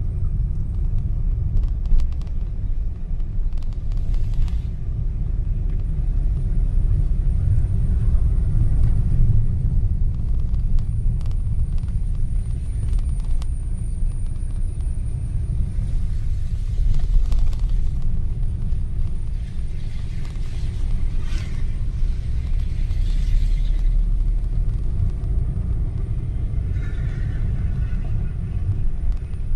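Steady low rumble of a moving road vehicle, with road and wind noise.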